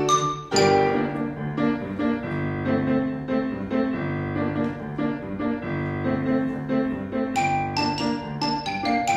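Grand piano playing sustained chords, joined near the end by a run of sharp, ringing mallet strikes on a keyboard percussion instrument.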